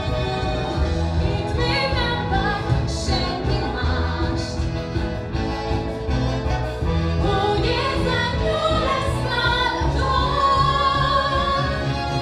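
A woman and a group of girls singing a musical-theatre song over instrumental accompaniment with a steady beat.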